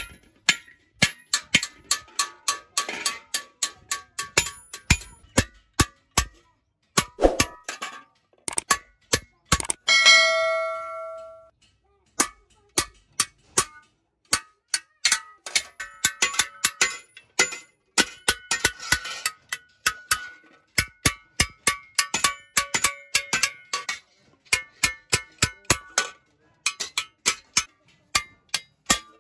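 A hand hammer strikes an iron hoe (kassi) blade lying on a flat steel anvil block, with quick metallic clinks at about two to three a second and short pauses. About ten seconds in, one louder blow rings on with a clear metallic tone for about a second and a half.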